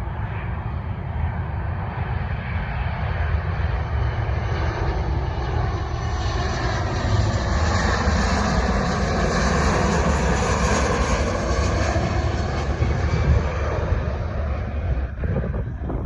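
Jet airliner flying past, its engine noise swelling to a peak about halfway through and then fading, with a shifting sweep in its tone as it passes.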